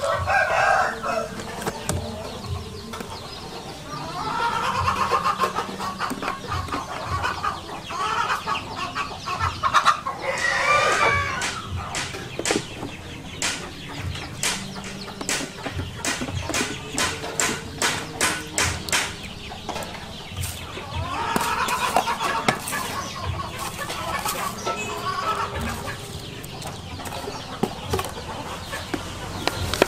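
Live chickens clucking in several bursts. In the middle comes a quick run of short wet clicks and slaps from hands working sauce into a raw plucked chicken on banana leaves.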